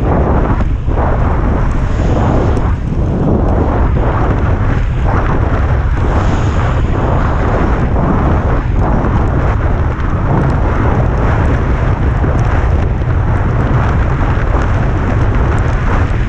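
Strong wind buffeting the microphone of a helmet camera on a bicycle descending fast in wind and rain: a loud, steady rushing roar, heaviest in the low end, unbroken throughout.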